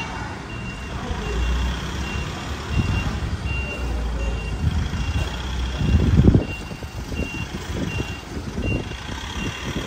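Isuzu Elf Giga minibus's diesel engine running as it manoeuvres, rising briefly about six seconds in, with a high electronic warning beep repeating steadily all the while, like a reversing alarm.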